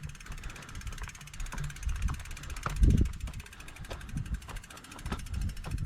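A mountain bike's loud rear freehub ticking rapidly as the bike is pushed uphill on foot, with uneven thumps, the strongest about three seconds in.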